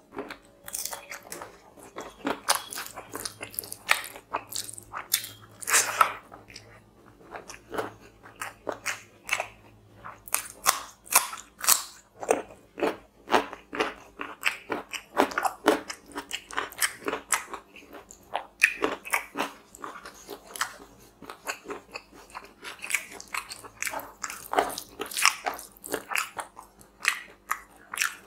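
Close-miked chewing: a man eating chicken curry and rice by hand, with many short irregular mouth clicks. The sound eases off briefly about a quarter of the way in and again about two-thirds through.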